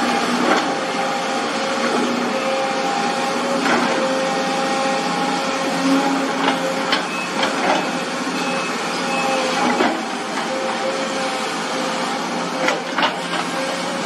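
JCB hydraulic excavator running steadily with a whining hum, and a scattering of short sharp knocks and clanks as it works its bucket and loads soil into a dump truck.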